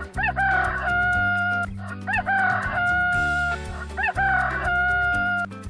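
Rooster crowing cock-a-doodle-doo three times, about two seconds apart, each crow ending in a long held note, over light background music.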